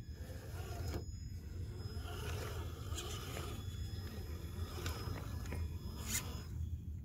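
Traxxas TRX-4 Bronco RC crawler driving past over dry leaves and twigs: a thin electric-motor whine with crackling and a few sharp clicks from the tyres, the whine stopping near the end as the truck moves off. A steady low rumble lies underneath.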